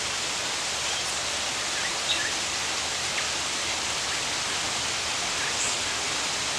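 Steady rushing hiss, like running water, with a few faint, short bird chirps at about two and three seconds in.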